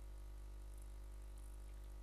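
Steady low electrical hum with a ladder of buzzing overtones, the mains hum of the recording setup.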